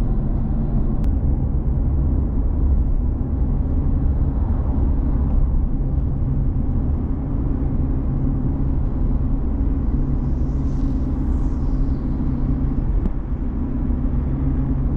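Car driving along at steady road speed: a constant low rumble of engine and tyre noise.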